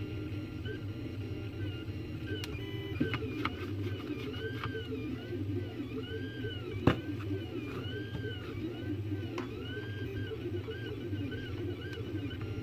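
Steady low hum, with a few clicks as the magnet-and-chain rig is handled; the sharpest and loudest click comes about seven seconds in. Through the middle a faint tone rises and falls about twice a second.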